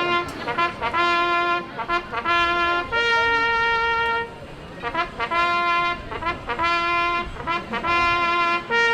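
Brass instruments, trumpets or bugles, playing a march tune in unison: runs of short notes on one pitch, broken by longer held notes a step higher.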